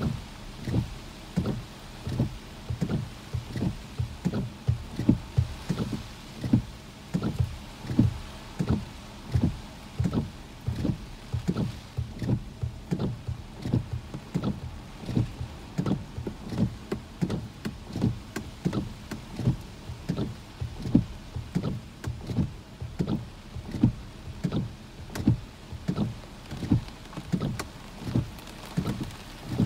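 Car windshield wipers sweeping back and forth over wet glass, a dull low thump about twice a second as the blades reverse, over faint rain and wind noise.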